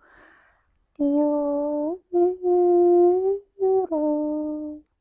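A woman's voice toning light language: a soft breath, then about four long wordless sung notes that step up slightly in pitch and settle back down.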